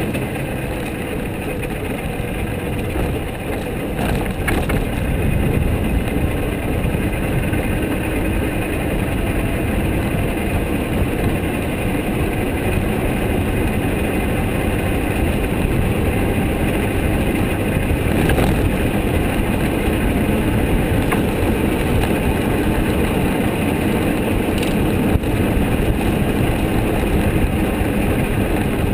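Osella PA 20 S open sports-prototype race car driven at speed, its engine running hard under load with wind rushing over the open cockpit, heard from on board. A few short knocks come through the steady noise.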